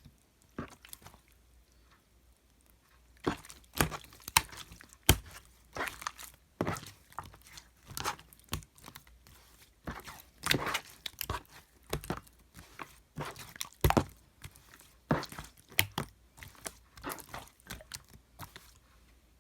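Slime being squeezed and poked by hand, making irregular sharp sticky clicks, pops and squishes that start about three seconds in and stop shortly before the end.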